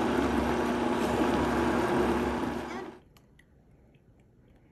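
Countertop blender motor running steadily, blending pineapple juice and fruit for popsicle mix. It cuts off about three seconds in, leaving faint room noise with a few small clicks.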